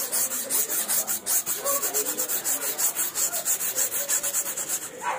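Sandpaper rubbed by hand back and forth over a primed canvas in quick, even strokes, a dry scratching rasp. The canvas is being sanded after its first coat of white to flatten raised, loose threads before the second coat.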